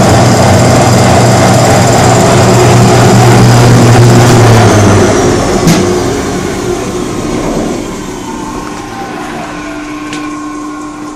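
Spencer P142-BD5HP portable industrial turbine vacuum running loudly and steadily. About five seconds in, its motor hum cuts out and a click follows. The turbine then winds down, its whine falling in pitch as the noise fades.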